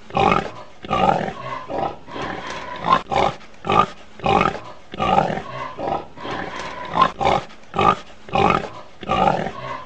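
Pig grunting over and over, short rough calls about one or two a second.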